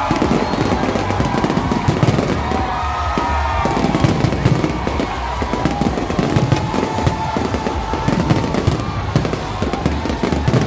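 Fireworks going off in rapid succession, a dense run of pops, bangs and crackling, over music with long held notes.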